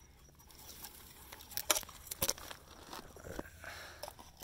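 Dry brush and twigs rustling and crackling as someone moves among the branches of a desert bush, with a few sharp snaps.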